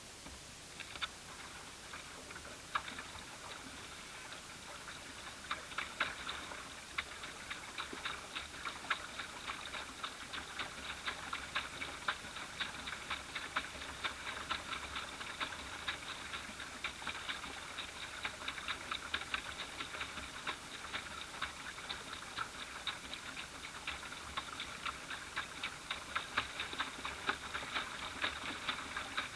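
Water lapping against a small boat's hull as a dense, irregular patter of light ticks and clicks, several a second, building up about a second in and carrying on.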